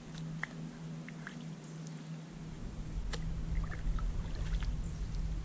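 Kayak being paddled: water dripping and trickling off the paddle, with scattered small splashes and ticks against a low rumble that grows from about two seconds in.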